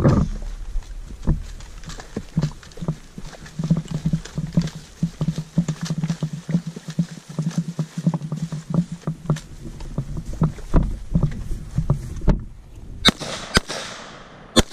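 Footsteps and gear clatter as a soldier runs and crawls through an obstacle course. Near the end come three or four sharp M4 carbine shots in quick succession, each echoing off the range.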